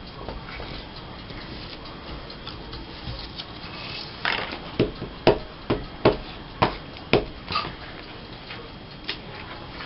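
A dog barking in a quick run of about eight short barks, roughly two a second, in the middle of the stretch.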